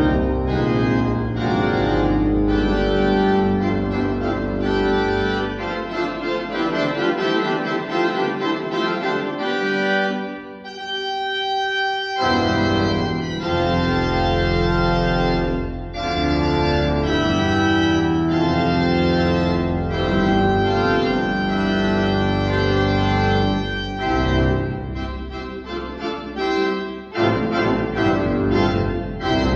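Hybrid church organ, Physis digital voices from a Viscount Envoy 350 console combined with J. W. Walker pipework, playing sustained full chords over a deep pedal bass. About ten seconds in the bass drops out for a thinner, quieter passage, and the full sound returns about two seconds later.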